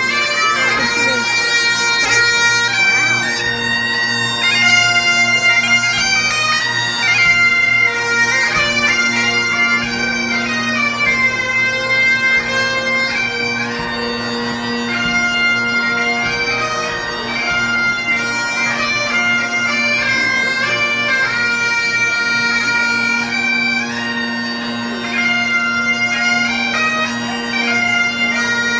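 Several Highland bagpipes playing a tune together, the melody stepping from note to note over their steady, unbroken drones.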